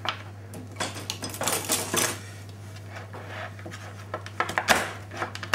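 Chef's knife cutting a rack of lamb into cutlet portions on a cutting board: scattered knocks and scrapes of the blade against the board and the meat, the loudest near the end.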